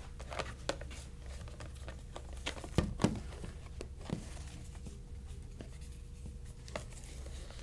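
A hand rummaging through paper raffle slips in a plastic tub: scattered rustling and light knocks, loudest about three seconds in, over a low steady hum.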